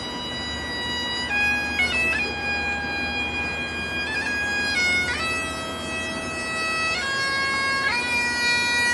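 Bagpipes playing a slow tune: long held notes changing every second or two over a steady drone.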